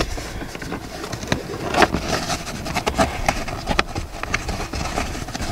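Hands rubbing and pressing on car floor carpet and a plastic kick-plate trim panel while tucking a cable behind them: scratchy rustling with scattered small clicks, the sharpest about two, three and four seconds in.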